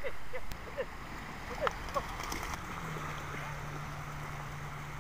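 Small waves washing on a sandy shore, a steady hiss, with short repeated chirps during the first two seconds and a steady low hum coming in about three seconds in.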